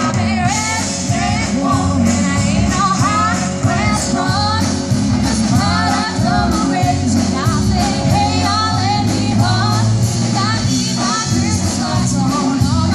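Live rock band playing, with a woman singing lead over electric guitar, bass guitar and drums.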